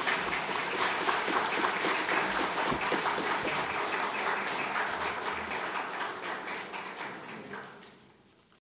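Audience applauding, a dense crowd of handclaps that fades away over the last couple of seconds.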